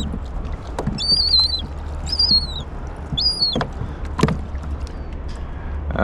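A seagull gives four high, drawn-out squealing calls about a second apart. A few sharp knocks and a steady low rumble run underneath.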